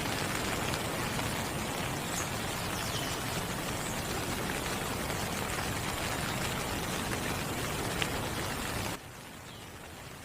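Steady rain falling, with a few sharper drip ticks. About nine seconds in it cuts abruptly to a quieter, softer rain.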